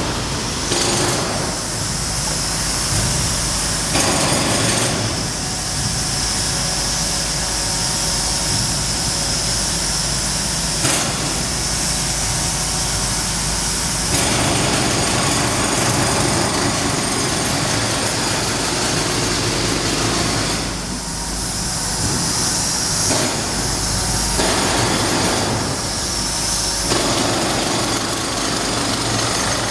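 Jackhammer breaking concrete on a construction site, loud and continuous, in long runs that change or stop and restart several times.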